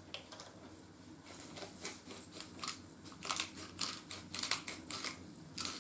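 Pepper mill being twisted over a frying pan, grinding black pepper in a run of short, dry clicks. The clicks start about a second and a half in and come thickest in the second half.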